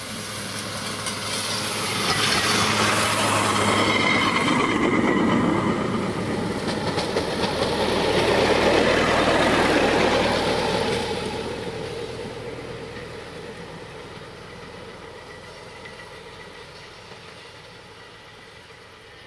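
Small motorized rail trolley (draisine) running along the track, its engine and its wheels on the rails growing loud as it passes, then fading steadily as it moves away.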